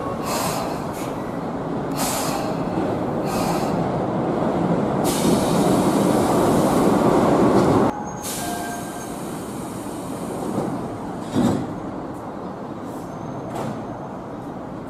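A train running on the rails: a steady rumble with a few sharp clacks, growing louder until it cuts off abruptly about eight seconds in, after which a quieter running-train sound carries on.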